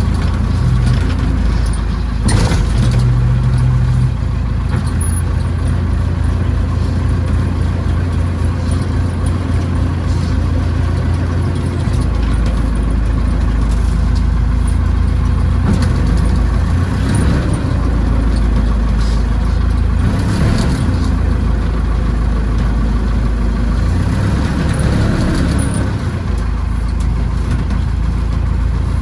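Massey Ferguson backhoe tractor's engine running steadily under work, its note shifting several times as the load changes.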